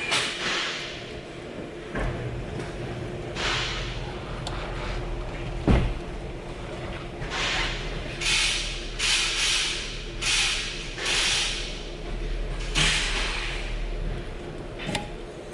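Threaded caliper piston tool being turned by hand to wind a rear brake caliper piston back in: a run of short scraping strokes, one after another, with a sharp metallic click a little before halfway. A steady low hum runs underneath.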